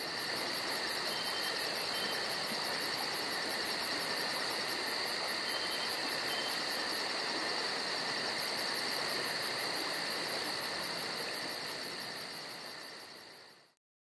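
Steady chorus of crickets, a shrill, even trill with a rapid regular pulsing; it fades in at the start and fades out near the end.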